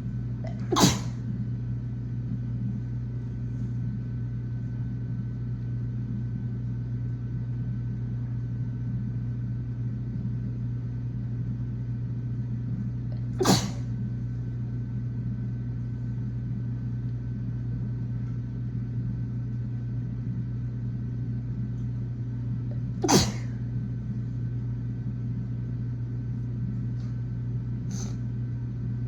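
A woman sneezing, three loud single sneezes spaced about ten seconds apart and a softer one near the end, over a steady low hum.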